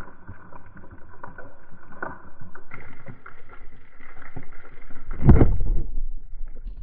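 Muffled water noise with scattered small knocks and clicks, as from a camera in a waterproof housing in the sea. About five seconds in there is a louder, low rushing surge lasting about half a second.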